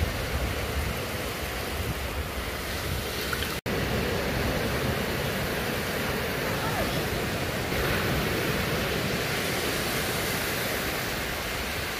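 Steady noise of surf washing on a sandy beach, with wind buffeting the microphone; the sound drops out for an instant about three and a half seconds in.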